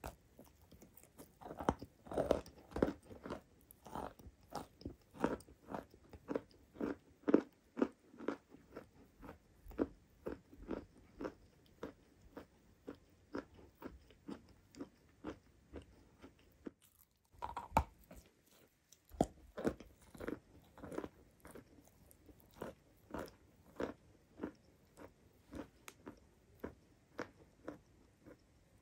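Crunching bites and chewing of crumbly purple-brown chalk coated in white chalk paste, at a steady pace of about two crunches a second. About two-thirds of the way through there is a short break and one louder crunch, and then the chewing starts again.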